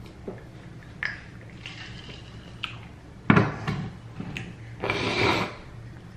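Close-up eating sounds from chicken wings: wet smacks and clicks scattered through, the sharpest about three seconds in, with a longer wet, noisy stretch about five seconds in.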